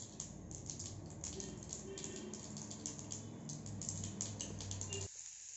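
Mustard seeds popping and crackling in hot oil in a small kadai: irregular, sharp little pops scattered throughout, over a faint low hum.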